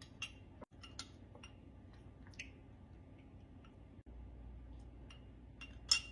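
Faint, scattered small clicks and ticks over a low hum, with one sharper click near the end.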